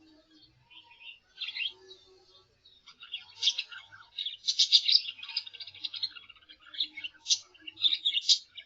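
White-rumped shama singing: a short phrase about a second and a half in, then a long, almost unbroken run of rapid, varied high whistled notes.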